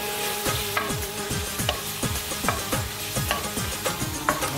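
Chicken pieces frying in oil in a metal karahi, sizzling steadily while a wooden spoon stirs them, with short clicks and scrapes of the spoon against the pan.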